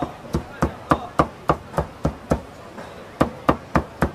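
Cleaver chopping meat on a thick wooden chopping block: sharp, even strokes about three and a half a second, with a short pause about two and a half seconds in.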